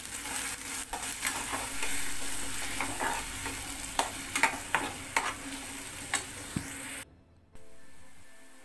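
Onion paste frying and sizzling in oil in a metal kadhai, stirred with a spatula that scrapes and knocks against the pan in sharp clicks. About seven seconds in the sound cuts out briefly and comes back much quieter.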